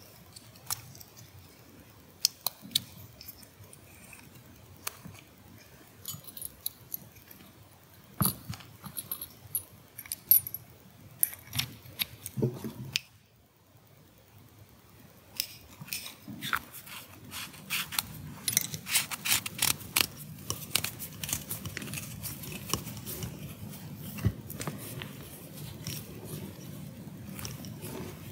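Metal shell and plastic insert of a Neutrik XLR cable connector being handled and pushed together by hand: irregular light clicks and clinks, in bunches about a third of the way in and again past the middle. A low rubbing rustle of hands on the parts sets in about two-thirds through.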